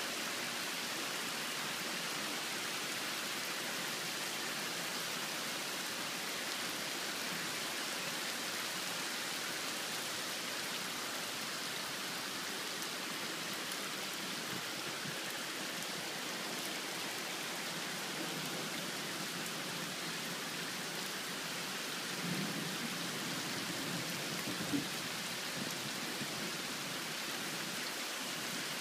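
Heavy rain falling steadily on a flooded yard and pooled standing water, an even hiss, with one short knock about three-quarters of the way through.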